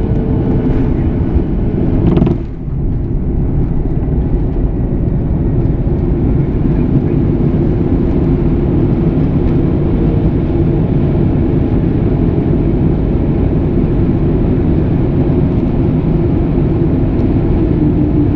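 Steady cabin noise inside a Boeing 737: jet engine and airflow noise heard from inside the passenger cabin. There is a brief louder moment about two seconds in, then a short dip, and a low hum slowly falls in pitch near the end.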